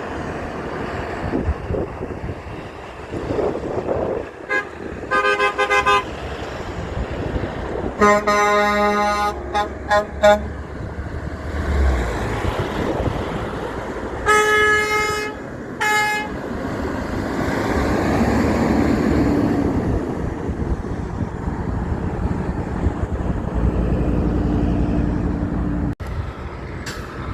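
Semi-truck air horn blown in several blasts: a short toot and a longer blast about five seconds in, a long blast followed by quick toots around eight to ten seconds, and another blast with a short toot around fourteen to sixteen seconds. Between them, passing trucks' engines and tyres run steadily.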